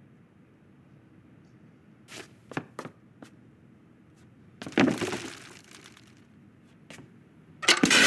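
Animated-film sound effects: a few light taps and clicks, then a sudden loud tearing, crunching noise about five seconds in that dies away over a second, two more light clicks, and another loud sudden noise near the end.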